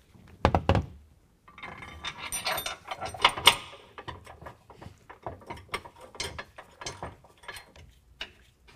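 Steel mounting bracket knocking and scraping against a pickup's frame as it is lined up, then a run of small metallic clicks as bolts are threaded in by hand. One sharp knock comes about half a second in, and a dense scraping rattle follows from about a second and a half to four seconds.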